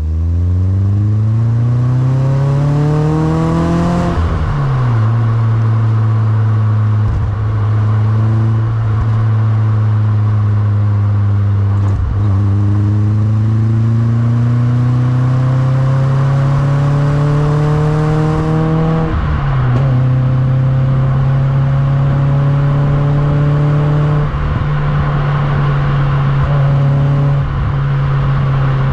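Opel Corsa A GSi's four-cylinder engine under way. Its note climbs for about four seconds, drops sharply at a gear change and holds steady. It climbs again from about twelve seconds in, drops at a second gear change near nineteen seconds, then holds steady again.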